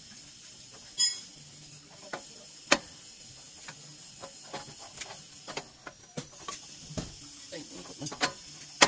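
Scattered metal clinks and knocks of steel steering parts being handled and fitted, a tie rod end worked into the steering arm by hand. A ringing metallic clink comes about a second in, with sharp knocks near three seconds and at the end, over a steady hiss.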